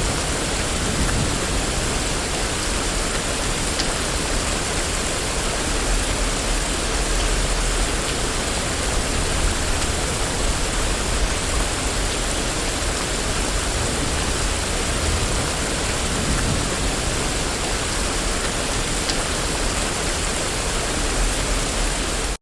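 Steady rain falling on a street: an even hiss with a low rumble underneath, stopping abruptly at the very end.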